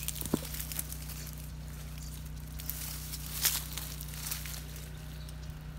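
Leaves and twigs of a Saskatoon berry bush rustling as a hand reaches in and picks a berry, with a couple of small snaps, over a low steady hum.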